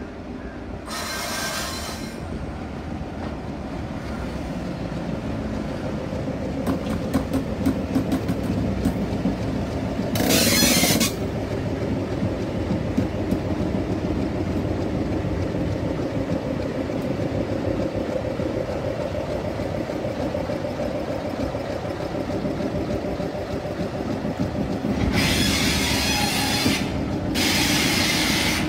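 Sri Lanka Railways Class M10A diesel locomotive passing close by, its engine droning steadily and growing louder over the first several seconds as it nears. Its wheels click over rail joints and points, and there are four short hisses of air.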